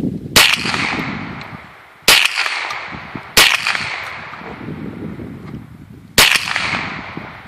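Ruger SR22 .22 LR semi-automatic pistol firing four single shots at an uneven pace, each crack trailing off in a long echo.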